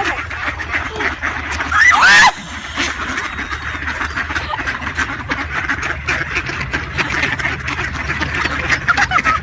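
A flock of ducks quacking in a dense, steady clamour, with one louder high call about two seconds in.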